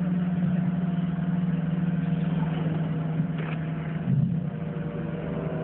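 Engine running steadily with a low drone, which shifts slightly about four seconds in.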